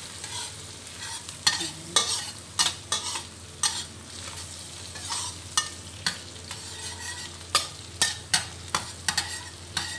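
Minced garlic sizzling in melted butter in a stainless steel wok, while a metal spatula stirs it, scraping and clinking against the wok in sharp, irregular strikes that stand out above the steady sizzle.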